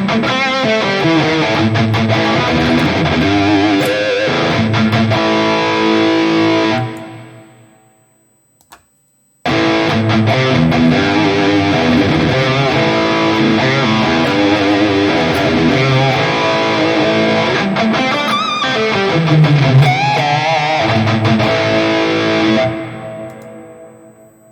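Electric guitar played through the NUX MG-30 modeler with its hall reverb switched on: two passages, each ending in a long reverb tail that fades away, with a short silence between them.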